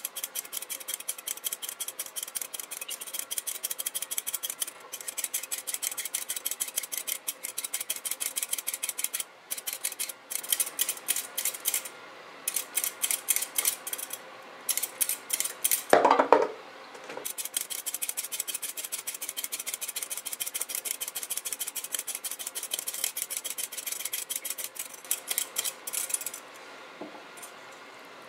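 Hand-held vegetable peeler scraping down a burdock root in rapid strokes, several a second, shaving thin strips into a bowl of water, with a brief pause partway and one louder clank about halfway through.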